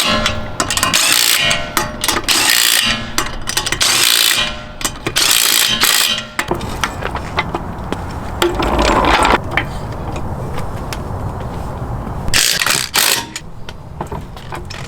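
Ryobi 1/2-inch cordless impact wrench running lug nuts onto a wheel in several short bursts of about a second each.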